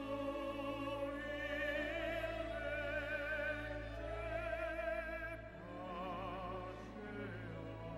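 Classical background music: a slow melody in long held notes with wide vibrato, operatic in character. A new, lower phrase begins about five and a half seconds in.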